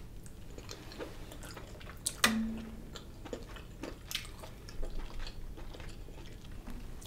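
A person chewing a mouthful of creamy shrimp and crab Alfredo pasta close to the microphone: soft, wet chewing with scattered mouth clicks, the loudest about two seconds in.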